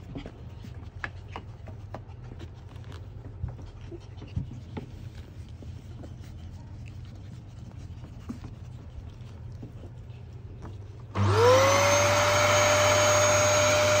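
Canister vacuum cleaner switched on about eleven seconds in: the motor spins up with a rising whine that levels off into a loud, steady run. Before it starts there are only faint scattered ticks over a low hum.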